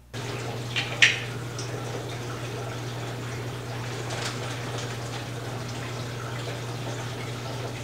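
Steady hum and watery hiss of an aquarium's pump and filter, with one sharp click about a second in.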